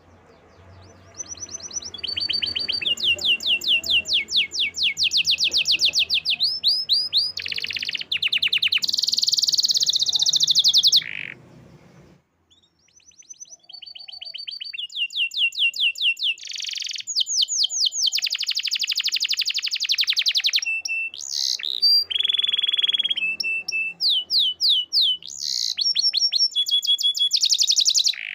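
Canary singing long runs of fast repeated trilled notes, switching to a new trill every second or two, in two bouts with a short pause a little before halfway.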